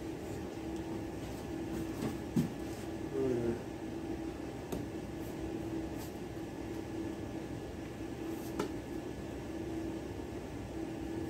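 Kitchen room tone: a steady appliance hum, with a few faint taps as squash pieces are dredged in flour from a metal pan.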